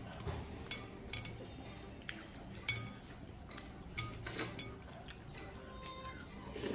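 Wooden chopsticks clicking against a bowl of noodle soup, several separate sharp taps with the loudest about two and a half seconds in, then a slurp of noodles near the end.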